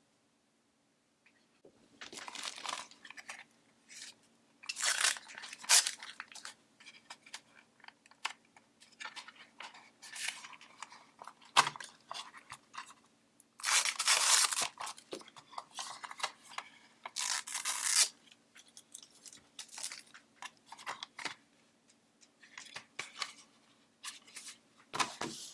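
Packaging being torn open and handled during an unboxing, starting about two seconds in. The crinkling and tearing comes in irregular bursts of varying length, with a few louder rips.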